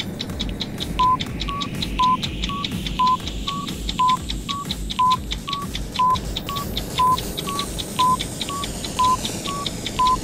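Countdown timer sound effect in its last seconds: rapid clock ticking, with short electronic beeps twice a second from about a second in, alternating a lower, louder beep on each second and a slightly higher one between. A low pulsing beat runs underneath.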